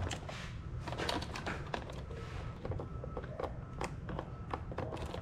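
Small, irregular plastic clicks and rattles as an RC buggy's plastic body shell is handled onto its chassis and fastened with a body clip.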